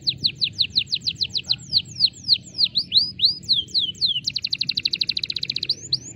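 Domestic canary singing one continuous song: rapid runs of repeated downward-sweeping notes, slowing into wider swooping notes around the middle, then a very fast trill in the second half and a few rising notes near the end.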